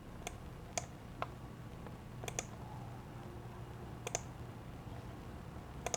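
Faint, light clicks at irregular intervals, several in a few seconds, with a low steady hum beneath.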